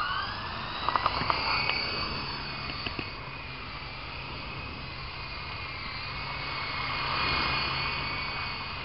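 Small R/C helicopter's motor and rotors whining, rising in pitch as it spools up to lift off, then a steady high whine as it flies, with a few light clicks about a second in.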